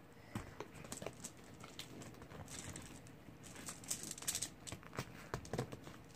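Packaging being picked and pulled at by hand: scattered small clicks and taps with short crinkling rustles, busiest about two and a half and four seconds in.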